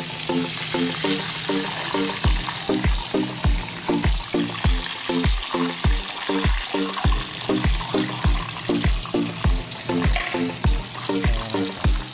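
Chicken pieces deep-frying in hot oil in a wok, with a steady sizzle, under background music with a steady beat. A heavy low kick joins the music about two seconds in.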